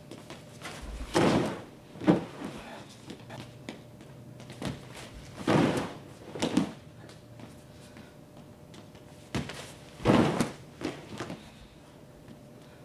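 Two wrestlers' bodies thudding onto a padded crash mat as an inside-trip takedown is drilled over and over. There are three heavy thuds about four seconds apart, each followed about a second later by a lighter thump.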